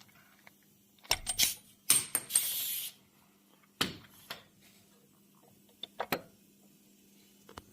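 A few separate metallic clicks and clinks, with a brief scraping hiss about two seconds in.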